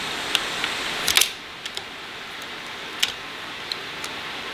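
Utility knife blade cutting at the plastic center piece of a car radio dash kit: a few sharp clicks and snaps of blade on plastic, the loudest a quick cluster about a second in, over a steady background hiss.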